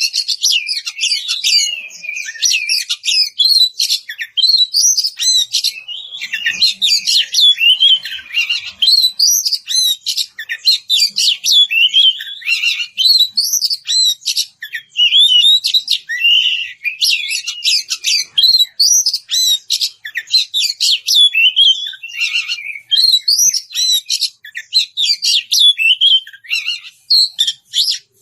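Oriental magpie-robin (kacer) singing loudly and without a break: a fast, varied stream of whistles, trills and chattering notes. It is the full, open song of a bird calling out to a rival.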